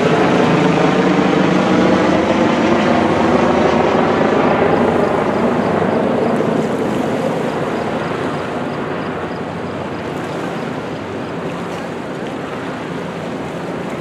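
A helicopter's rotor and engine hum passes over and fades away during the first half. The steady rush of the Niagara River's whitewater rapids continues underneath.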